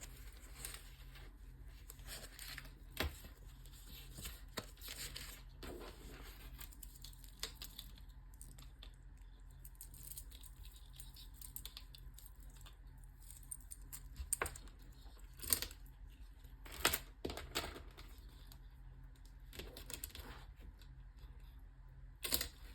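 Packaging rustling and tearing, with scattered sharp clicks and taps, as a wristwatch is taken out of its box and handled. There is a quieter stretch in the middle.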